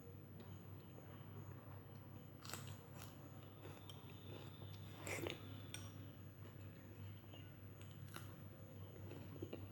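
A person eating close to the microphone: chewing and biting, with a few short crisp clicks of mouth and food, the loudest about five seconds in, over a low steady hum.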